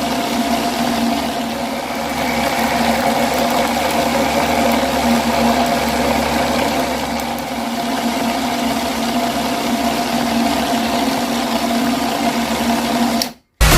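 Homemade mini mixer-grinder driven by a 555 DC motor, running steadily with a constant motor whine under a noisy whirr. It cuts off suddenly near the end.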